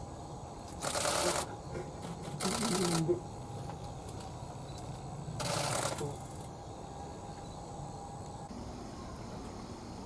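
Common kingfisher giving three harsh, noisy threat calls, each about half a second long, about a second, two and a half seconds and five and a half seconds in: territorial threat calling at a rival kingfisher.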